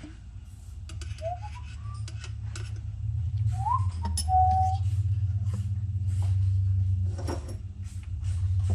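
A low steady rumble swells about three seconds in and stays loud, with light metal clinks of valve parts on the workbench and two short rising whistled notes, the second held briefly.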